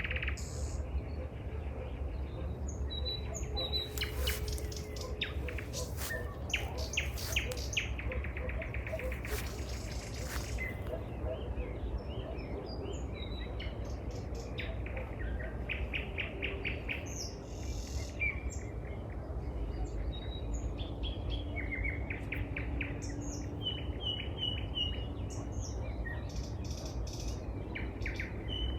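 Several songbirds singing and calling, with quick repeated trills and short whistled chirps, over a steady low rumble.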